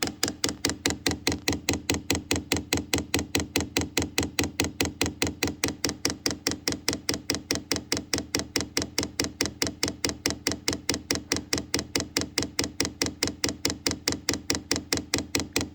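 Chinese diesel heater's electric fuel dosing pump ticking rapidly and evenly, about five clicks a second, as it primes the fuel line.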